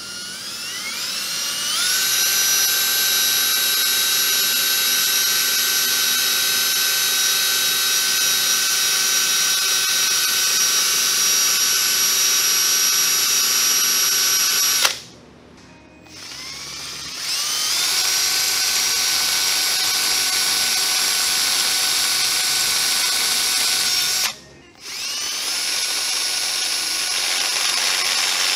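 Milwaukee cordless drill boring the oil-return hole through a 2JZ engine's oil pan, run in three long stretches. Each starts with a rising whine as the motor spins up, then holds a steady pitch. It stops about halfway through and again about three quarters in, starting again a second or two after each stop.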